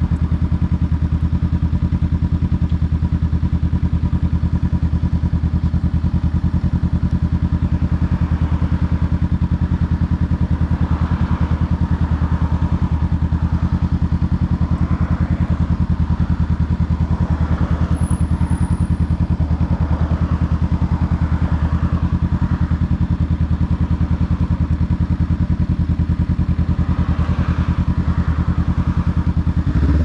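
Honda Rebel 500 parallel-twin engine running steadily through a TBR Comp-S aftermarket exhaust, holding one unchanging low idle-like engine speed throughout, with an even, pulsing exhaust note.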